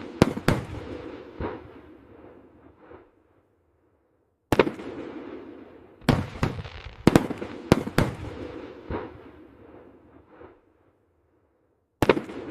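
Fireworks exploding: a series of sharp bangs, each trailing off in a rolling echo, coming in clusters with two brief silent breaks between them.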